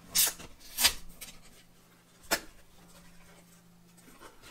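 Cardboard box flaps being pried open and folded back by hand: two short tearing scrapes of old cardboard in the first second, then a sharp snap about two seconds in, followed by faint rubbing.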